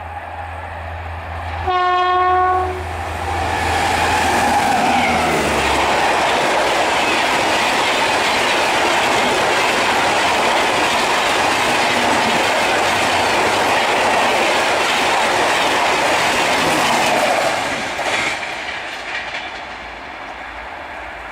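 A WAP-7 electric locomotive gives one short horn blast about two seconds in. It then passes at full speed with its LHB coaches: a loud, steady rush of wheels on rail for about fifteen seconds that dies away near the end.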